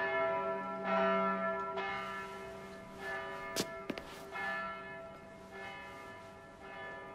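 Church bells tolling, struck again every second or so, with long ringing tones that slowly fade away. Two short sharp clicks come about halfway through.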